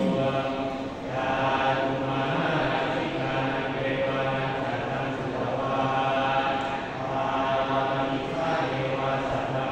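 Thai Buddhist monks chanting together in a steady monotone, with short breaks between phrases: the recitation of an amulet consecration ritual.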